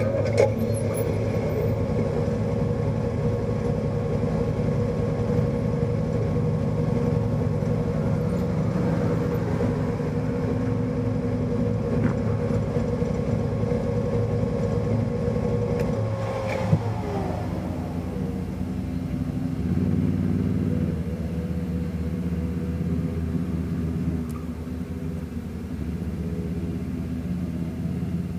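Off-road vehicle's engine running steadily as it drives along a dirt trail, heard from inside its cab. A steady whine over the engine falls away about two-thirds of the way through as the vehicle eases off, with a single knock just after; the engine is a little quieter near the end.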